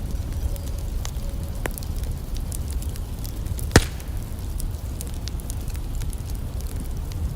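Campfire crackling, with scattered small pops and one loud sharp snap about halfway through, over a steady low rumble.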